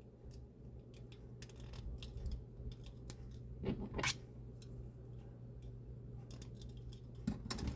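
Small plastic toy parts clicking and scraping as they are handled and snapped onto an action figure, in scattered light clicks with a few louder ones, over a steady low hum.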